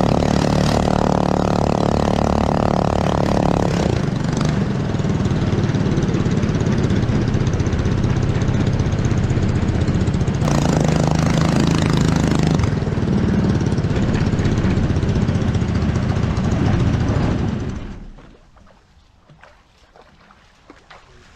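A 212cc 6.5 hp Honda-clone single-cylinder four-stroke engine driving a homemade jet-boat jet unit runs loud and steady, its tone shifting a few times. The sound cuts out about eighteen seconds in.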